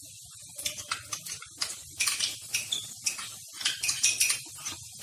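Spatula stirring and scraping a thick yogurt and cashew paste masala around a pan, with short irregular scrapes and clicks a few times a second.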